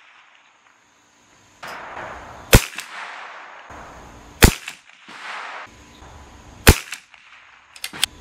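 Three single shots from a CZ 457 .22 LR bolt-action rifle, about two seconds apart, each sharp crack trailed by a short echo.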